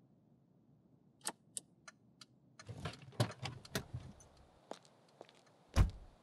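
A few sharp clicks inside a car, then a couple of seconds of knocking and shuffling as the driver's door is opened and someone climbs out. Near the end, a single heavy car door slam, the loudest sound.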